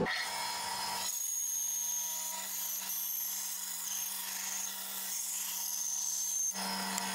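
Laguna bandsaw running and cutting wood fed along its fence: a steady motor hum under the hiss of the blade through the wood, with a thin high whine over it.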